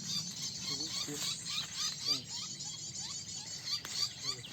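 Many small birds chirping at once: a dense twitter of high, quick overlapping calls, with a short rising note repeated about twice a second at a lower pitch.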